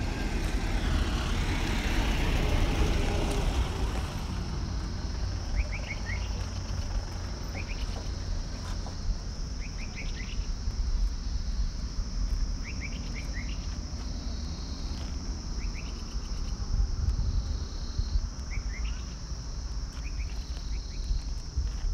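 A jeep passes on the road in the first few seconds. After that a bird calls in short runs of two or three chirps every couple of seconds, over a steady high insect drone and a low rumble.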